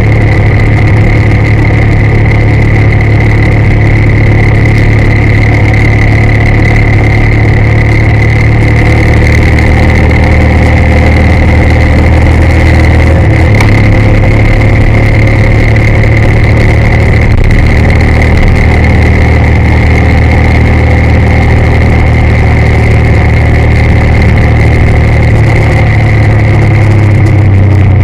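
Car engine and road noise heard from inside the cabin while driving, loud and steady, with a constant high-pitched whine running under it.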